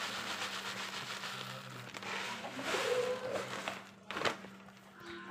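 Fine white granules pouring onto a cloth mat: a soft hissing patter, louder about two to three seconds in, then a single sharp tap a little after four seconds.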